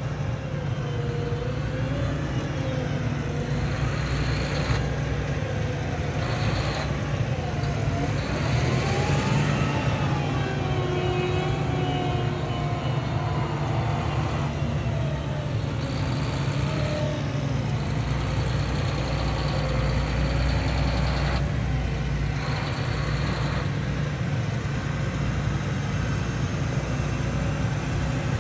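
John Deere 8360RT track tractor's 9.0-litre six-cylinder diesel running steadily as the tractor drives and turns, its pitch wavering slightly, with short bursts of higher rushing noise coming and going.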